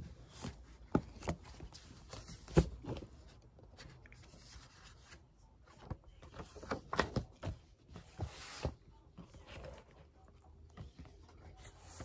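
Paper pages of a thick book being flipped and riffled, with rustling runs. Before them come a few sharp knocks and taps of books and hands on the desk, the loudest in the first few seconds.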